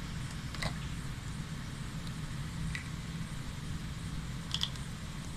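Faint steady low hum with a light hiss and a few soft ticks, while thick jaggery syrup is poured slowly into mashed chana dal in an aluminium pot; the syrup itself makes almost no sound.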